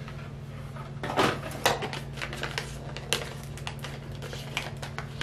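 A sealed scent-refill packet being torn open by hand: a run of short, irregular crackles and rips.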